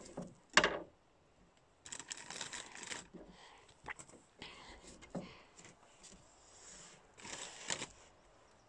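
Quiet food-prep handling sounds: a sharp knock about half a second in, then crinkling of a plastic marshmallow bag, a few light taps of a knife on a wooden cutting board, and a spoon against a batter bowl.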